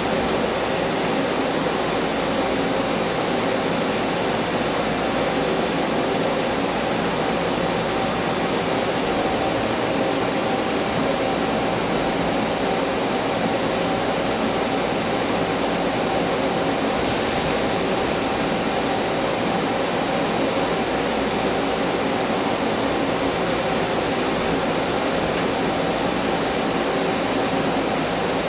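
Doosan PUMA TT1800SY twin-spindle CNC turning center running: a steady machine hiss with a few faint steady hum tones underneath.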